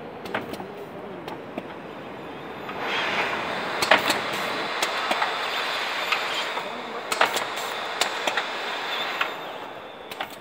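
Automatic carton overwrapping machine running: a steady mechanical clatter with sharp clacks, growing louder and hissier from about three seconds in until about nine seconds in.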